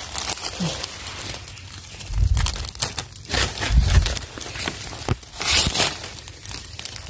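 Dry fallen leaves on the forest floor crackling and rustling irregularly as someone steps and pushes through the leaf litter, with low thuds about two and four seconds in.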